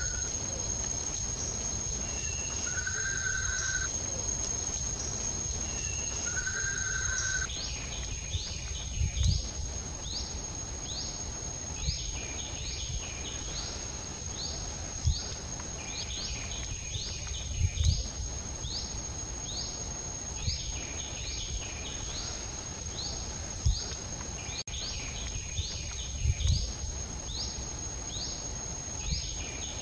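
Outdoor nature ambience: a steady high-pitched insect drone, with a bird repeating a one-second whistled note a couple of times early on. About seven seconds in, rapid short rising chirps take over at about two a second, and there are occasional low thumps.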